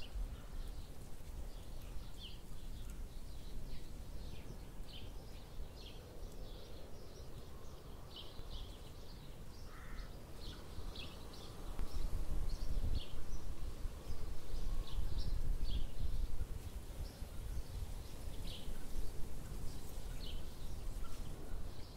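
Small birds chirping in many short, separate calls over a steady low outdoor rumble, which grows louder about halfway through.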